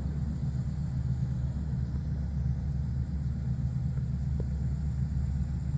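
Van engine idling, a steady low rumble.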